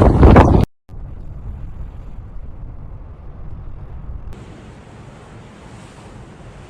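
Strong wind buffeting the microphone, cut off suddenly under a second in, followed by a steadier, quieter low rumble of wind noise.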